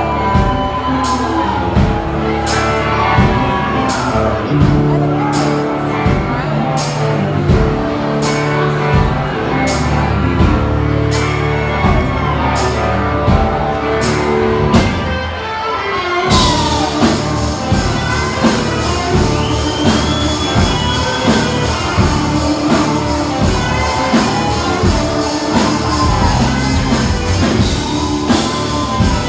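Live rock band playing with a lead singer. About halfway through the band comes in fuller, with steady cymbals over the beat.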